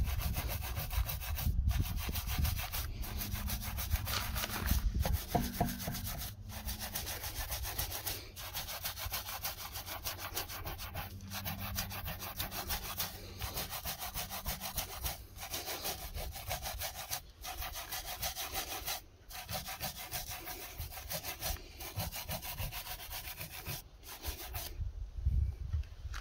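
Stiff wheel brush scrubbing a Volvo aluminium wheel wet with wheel cleaner: a steady scratchy rubbing of bristles on metal, broken by short pauses every second or two between strokes.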